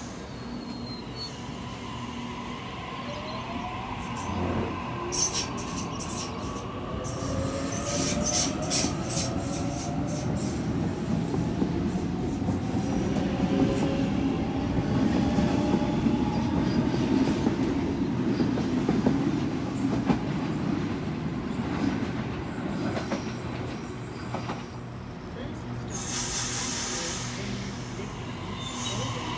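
Sydney Trains Waratah electric train pulling away from the platform: its traction motors give a whine of several tones that climbs slowly in pitch as it speeds up, over a steady rumble, with a run of wheel clicks over rail joints. A short burst of hissing comes near the end.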